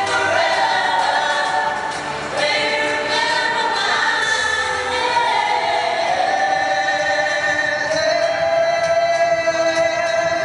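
A group of singers singing together live, ending the phrase on a long held note near the end.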